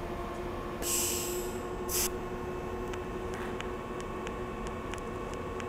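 Steady electrical hum of an Everlast 251si inverter welder running a TIG arc, with a short hiss about a second in and a click soon after.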